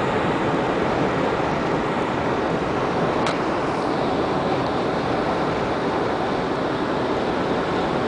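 Car driving at highway speed through a blizzard, heard from inside the cabin: a steady rush of wind and tyre noise, with one short click about three seconds in.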